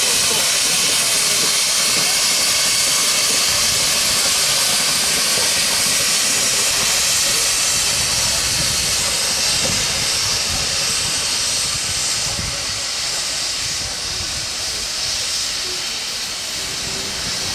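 Full-size steam traction engine hissing steam steadily as it moves slowly off, the hiss easing slightly in the second half.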